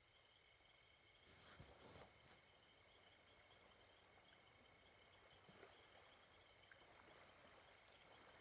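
Near silence with a faint night ambience of crickets chirping steadily, and a few soft rustles about one and a half to two seconds in.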